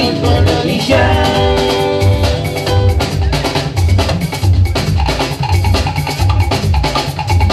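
Upbeat dance music with a steady, deep drum beat and held instrumental tones over it.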